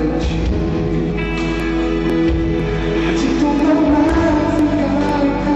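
Live pop concert music: a band with keyboard playing while a male singer sings into a headset microphone, loud and steady, as heard from the audience.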